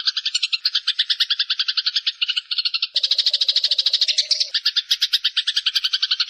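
Songbird mastering recording: fast, continuous trilling, about a dozen notes a second. About three seconds in the sound thickens as a second trill joins, with a lower buzzing note under it for a second or so.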